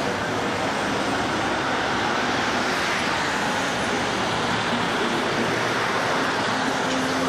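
Street traffic noise: a city bus passes close by and drives off, over a steady rush of road noise.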